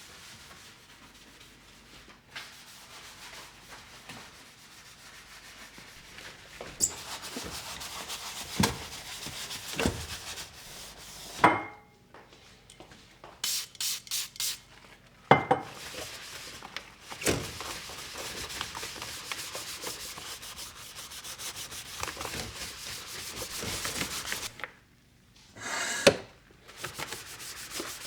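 Steady rubbing against a hard surface, a rough scrubbing sound made of quick fine strokes, broken by several sharp knocks and a quick run of four light taps about halfway through.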